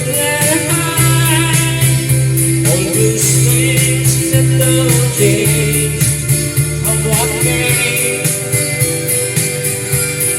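Folk-country song playing: acoustic guitar and a steady beat under a wavering lead melody.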